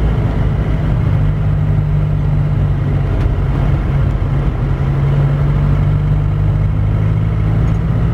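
An Isuzu Panther driving on the road, heard from inside the cabin. Its engine makes a steady low drone.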